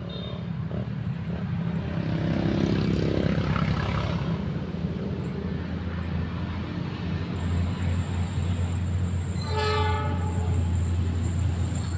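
Diesel locomotive approaching out of sight: a steady low engine rumble grows louder, and about ten seconds in the horn sounds one blast of about a second.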